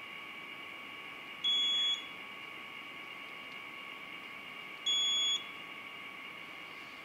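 Optical fruit-fly counter in an electronic McPhail trap sounding two half-second high beeps, about three and a half seconds apart, each marking an insect detected and counted by the sensor. A steady high electronic whine runs underneath.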